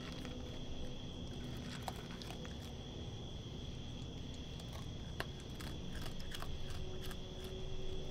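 Raccoon crunching and chewing dry kibble: scattered sharp crunches and clicks, coming thickest in the second half.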